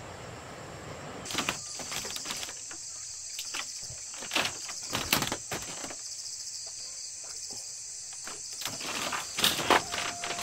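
Steady rushing ambience for the first second or so. Then a steady high chirring of night insects such as crickets, with scattered knocks, clicks and rustles of someone moving about and handling things in a wooden hut. A steady tone comes in near the end.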